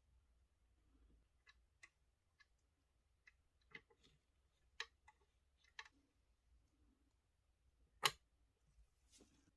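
Faint, scattered clicks and taps of small hard parts being handled, with one louder tap about eight seconds in, over near-silent room tone.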